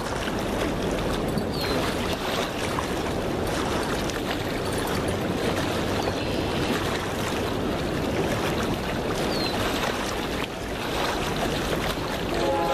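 Steady rush of wind and river water against a rocky bank. Near the end a distant train horn starts to sound.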